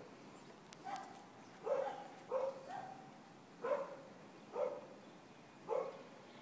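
A dog barking, about seven short barks spaced roughly a second apart.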